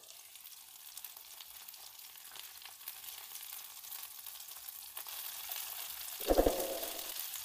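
Chicken wings sizzling as they pan-fry in oil in a nonstick frying pan, the sizzle growing louder once the lid is lifted off. Tongs move the wings, and a short louder sound comes about six seconds in.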